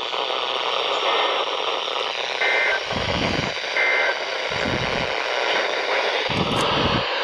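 NOAA Weather Radio receiver playing a weak, hissing broadcast signal after the warning message ends. Short two-tone data bursts of the EAS end-of-message code chirp through the static about a second and a half apart, and a few low thuds sound in the noise.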